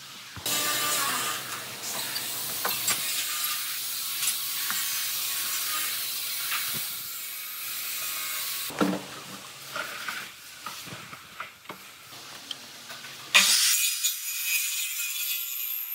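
Wood being worked with a tool. A steady hissing scrape runs for about eight seconds, followed by scattered clicks and knocks, then a sudden louder hiss near the end.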